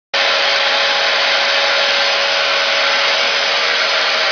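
Electric confetti blower machine running: a loud, steady rush of air from its blower motor, with a constant whine in it.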